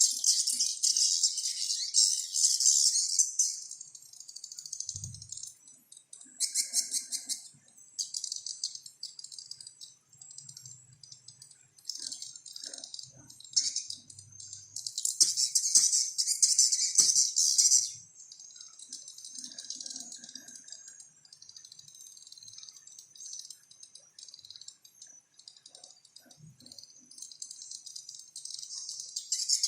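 Recorded bird lure call: rapid, high-pitched twittering and trilling in bursts of a few seconds, with short pauses between them.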